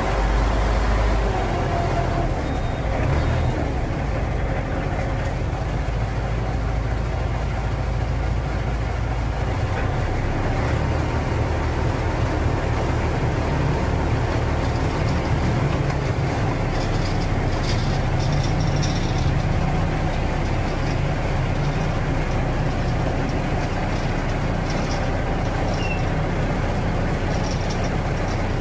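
Steady low rumble of a running vehicle engine, even in level throughout.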